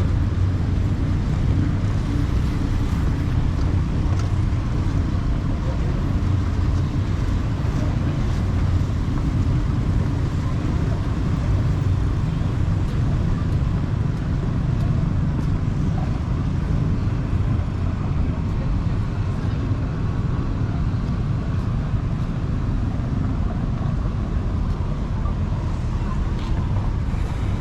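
Steady low rumble of wind on the microphone mixed with road traffic noise, at an even loudness throughout.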